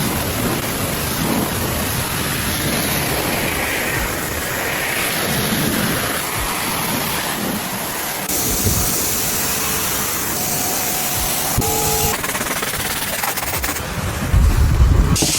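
Pressure washer spraying water onto a car in a steady, loud hiss. The spray sound changes abruptly twice, and a louder low rumble comes near the end.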